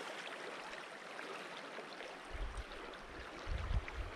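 Steady rush of flowing river water, with two brief low wind buffets on the microphone about two and a half and three and a half seconds in.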